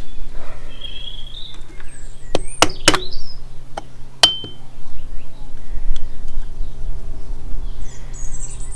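A screwdriver and small metal parts clicking and clinking as the float bowl screws are undone and a float bowl is taken off a Honda CB750 carburettor. The clicks are sharpest and most frequent between about two and four seconds in.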